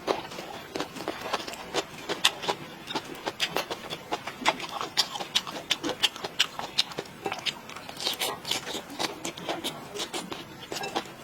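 A person eating close to the microphone: chewing and wet mouth clicks and smacks, several a second in an uneven rhythm.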